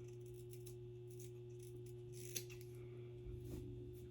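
Scissors snipping through synthetic wig bangs: faint scattered snips, with one sharper snip about two and a half seconds in, over a steady low hum.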